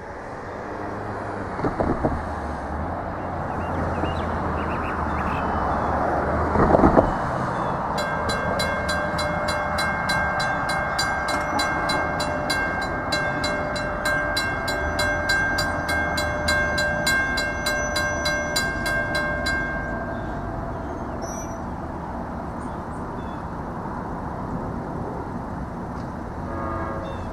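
Wind buffeting the microphone with a steady rush and low rumble, with two heavy gusts in the first seven seconds. From about eight to twenty seconds a distant held chord of high tones with a fast, even pulse sounds over the wind.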